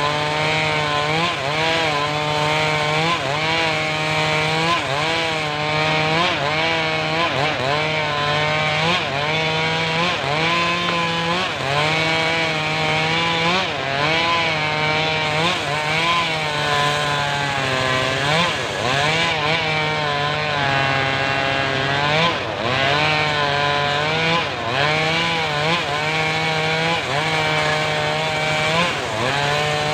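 Engine-driven homemade circular sawmill cutting through a mahogany log. The engine's pitch sags and recovers about once a second as the blade takes the load.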